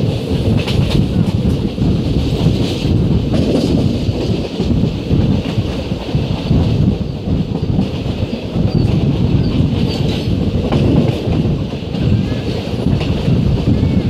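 Pallavan Superfast Express passenger coach running along the line, heard from its open door: a loud, steady rumble of wheels on the rails with irregular clatter over the track.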